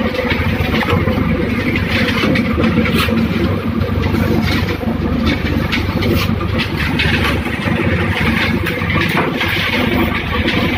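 Paver block making machine running steadily, a loud mechanical hum with frequent sharp knocks and clatter as concrete blocks and pallets are handled.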